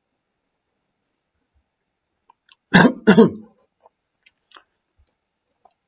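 A man clears his throat twice in quick succession, followed by a few faint clicks.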